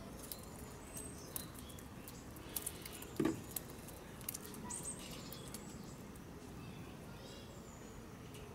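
Faint patter of scattered taps from a flock of Humboldt penguins on wet concrete, with short high bird chirps here and there and one louder knock about three seconds in.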